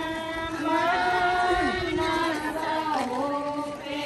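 Several voices singing together in slow, long-held notes that glide between pitches.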